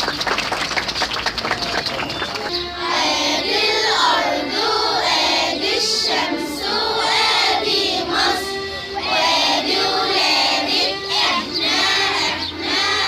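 A group of children singing together in phrases, starting about two and a half seconds in, after a short stretch of busy crowd noise.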